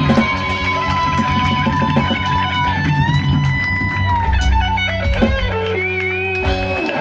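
Live rock band with electric guitars, bass and drums playing loud, with long sustained guitar notes that bend in pitch. Near the end the bass and drums drop out while a guitar note rings on, and the song comes to a close.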